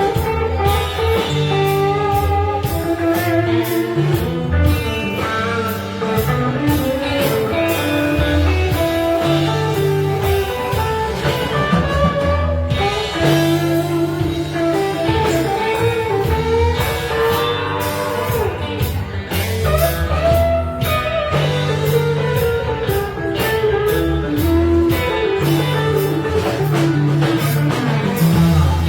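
Live band playing a blues-rock number, with electric guitar to the fore over bass and drums.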